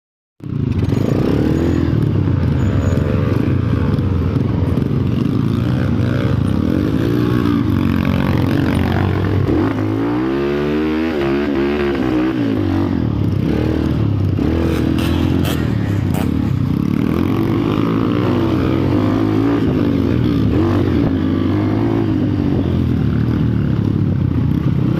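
Motor vehicle engines running, their pitch rising and falling throughout as they rev and pass, with crossing glides about ten to twelve seconds in.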